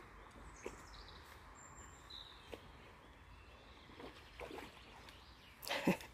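Faint woodland quiet with a few short bird chirps and the soft sloshing of a small dog wading through a shallow stream. A short, louder noise comes near the end.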